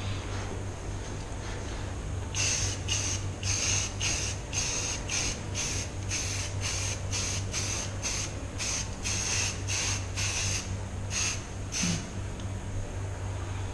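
Rust-Oleum aerosol spray-paint can sprayed in a long run of short hissing bursts, about two a second, starting about two seconds in and stopping shortly before the end. A low steady hum lies underneath.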